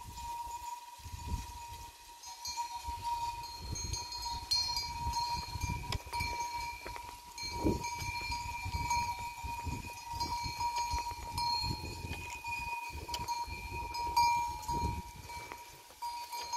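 Bells on a grazing herd of goats clinking and ringing continuously and irregularly, with gusts of low rumble underneath.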